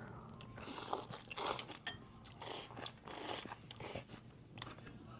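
A person chewing with repeated crunching bites, faint and close, while eating a bowl of bún with roast pork.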